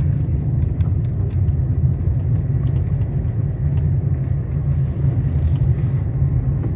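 2019 Nissan Versa driving slowly, heard from inside: a steady low rumble of engine and road noise, with no knocking from the suspension now that its shock absorbers, stabilizer links and control arm have been replaced.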